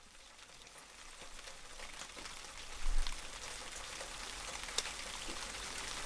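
Steady rain patter with scattered crackling drops, fading in from silence and growing louder. There is one low thump about halfway through.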